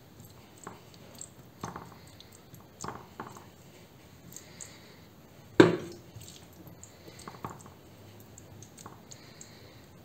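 Wooden spatula pressing and spreading a moist macaroni stuffing into a pan, with a few soft knocks of the utensil against the pan and one louder knock about halfway through.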